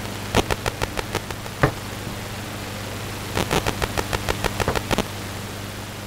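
Experimental electroacoustic soundtrack: a steady hiss over a low hum, broken by irregular runs of sharp clicks and crackles. There is a scatter of clicks in the first second, a single click a little later, and a denser run of clicks in the second half. The hiss then slowly fades.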